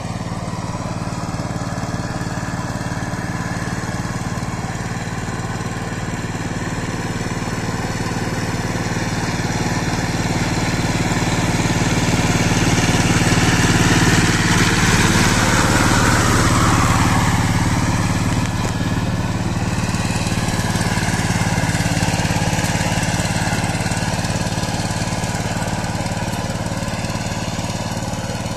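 Two-wheel power tiller's single-cylinder diesel engine running steadily under load as its rotavator churns through flooded paddy mud. It grows louder as the tiller comes close about halfway through, then fades as it moves away.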